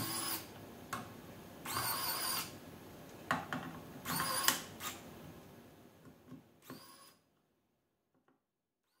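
Small cordless electric precision screwdriver whirring in short bursts, four in all, each under a second with a steady whine, as it turns the tiny screws of a metal ring. Light clicks of the bit and screws come between the bursts.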